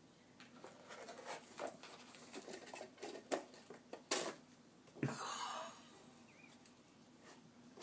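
A cardboard box being batted, pushed and climbed on by a kitten at play: scattered taps, knocks and rustles of cardboard on carpet, with a few sharp clicks and a longer scraping rustle about five seconds in.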